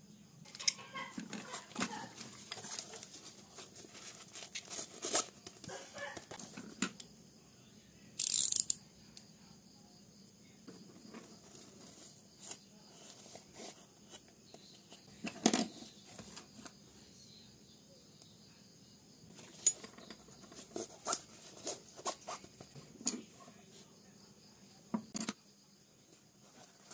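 Handling noises of art supplies being slipped into the elastic loops of a canvas pencil roll: scattered clicks, taps and fabric rustles, with a short louder rustle about eight seconds in and a sharp click about halfway through.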